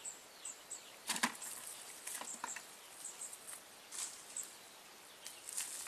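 Cast net being handled and gathered up on dry leaves: scattered short rustles and crackles, the loudest about a second in, around two seconds in and at four seconds.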